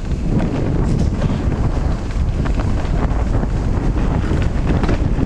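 Wind buffeting the camera microphone on a fast mountain-bike descent, a steady heavy rumble, with scattered knocks and rattles from the bike running over the rough dirt trail.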